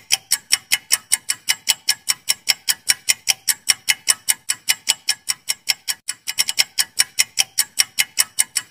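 Quiz countdown timer's ticking-clock sound effect: sharp, high-pitched ticks at about five a second, with a brief quicker flurry about six seconds in.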